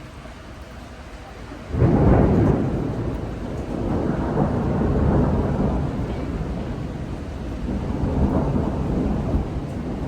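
A thunderclap breaks suddenly about two seconds in and rolls on as a long rumble, swelling again twice, over the steady hiss of rain.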